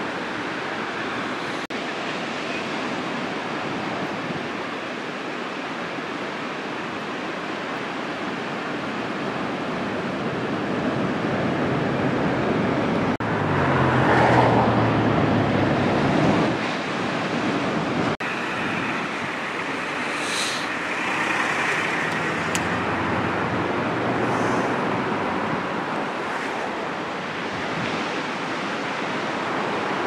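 Steady wash of breaking ocean surf with wind on the microphone. The noise swells to a louder rush about halfway through, with a faint low hum under it, and there are a few sharp clicks.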